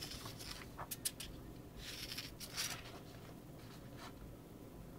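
Sheets of paper being slid and shuffled by hand: two soft rustles, with a few light ticks about a second in.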